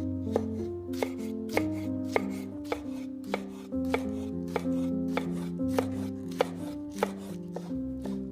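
Knife chopping on a cutting board, sharp cuts about twice a second, over background music with a steady melody and bass.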